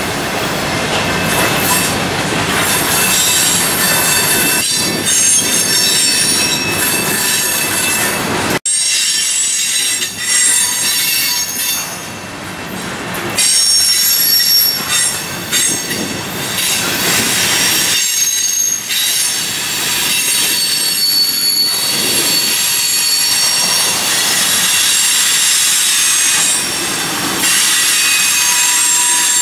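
Freight train of covered hoppers and tank cars rolling past, wheels rumbling on the rail with high-pitched flange squeal that comes and goes. The low rumble falls away abruptly about nine seconds in.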